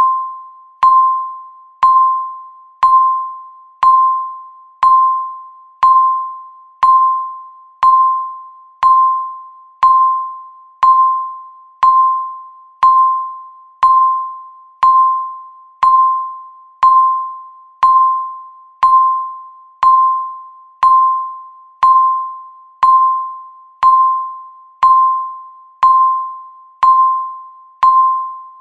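Countdown timer beeping once a second: a short, single-pitched beep that starts sharply and fades quickly, repeating evenly.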